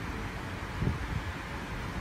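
Steady low hum and hiss of background noise, with one brief low bump a little under a second in.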